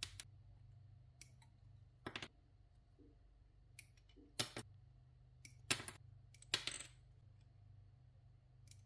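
Small 3D-printed plastic parts snapping and clicking, a sharp crack every second or two, some in quick pairs, over a faint low hum. The sound fits pieces being broken free of a printed kit card.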